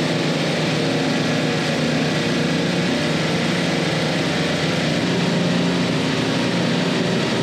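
Semi-hermetic refrigeration compressors running on a parallel rack, a steady machine drone with a constant low hum.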